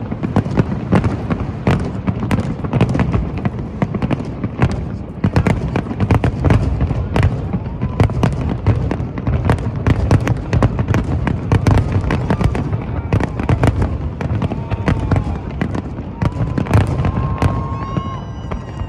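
Aerial fireworks in a continuous barrage of dense, overlapping bangs and crackling over a low rumble.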